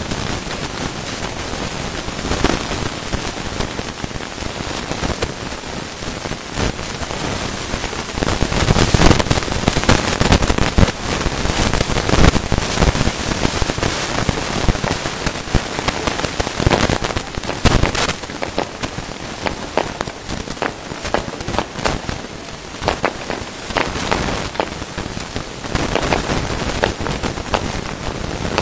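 Fireworks display: a continuous dense crackling and fizzing of bursting stars, with louder bangs grouped about a third of the way in and again a little past the middle.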